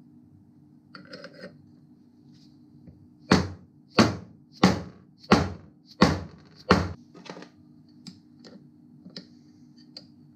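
Six sharp hammer blows about two-thirds of a second apart, seating a homemade aluminium flywheel puller onto the hub of a Sachs 50cc moped engine, followed by a few lighter metal clinks and taps.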